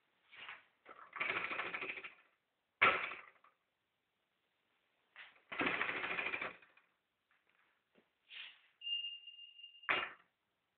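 A mechanical kitchen scale's stainless steel bowl being handled as an orange is lifted out and set back in it: two spells of rattling and scraping, sharp knocks, and a brief metallic ringing tone just before the last knock near the end.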